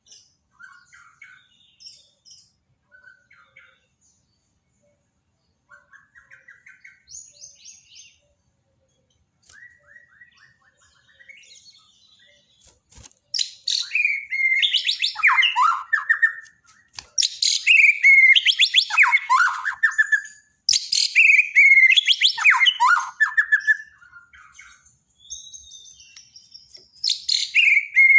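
Bornean white-rumped shama (murai batu borneo) singing: soft, scattered whistled phrases at first, then from about halfway loud, varied song phrases repeated every few seconds, many ending in falling whistles.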